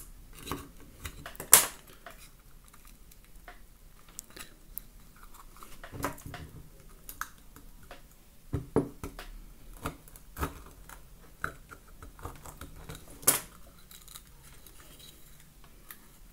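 Scattered clicks, taps and small scrapes of a craft-knife blade prying the back panel off a small walnut clock case, with two sharper, louder clicks, one about a second and a half in and one late on.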